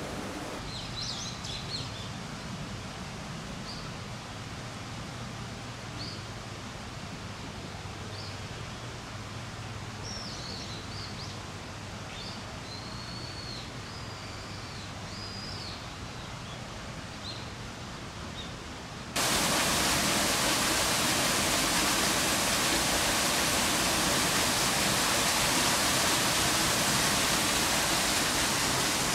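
Birds chirping over a steady low outdoor hum. About two-thirds of the way in, this switches abruptly to a loud, steady rush of running water.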